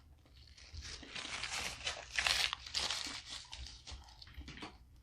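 Snow crab leg shells being cracked and pulled apart by hand, a dense crackling and crunching that swells to its loudest a little past the middle and then fades.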